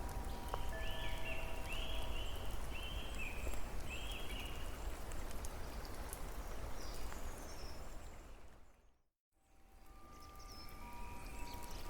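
Steady patter of rain and running water with a bird chirping a handful of times in the first few seconds. About three-quarters of the way through, the whole soundscape fades out to silence and fades back in.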